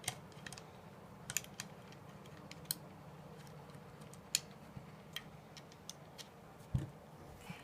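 Small screwdriver working the rear receiver pin screw on an airsoft M4 receiver: scattered light clicks of metal tool on metal and plastic, with one duller knock near the end.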